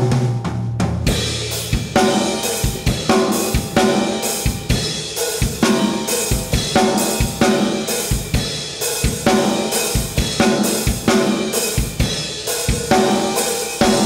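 Drum kit playing a halftime groove: the crash cymbal is hit together with the snare on the offbeats, the hi-hat on the downbeats, with snare pickups in between, in an even, repeating rhythm.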